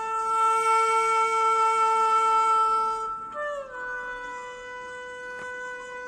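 Background music: a wind instrument holds one long note, then slides up to a higher note and holds it.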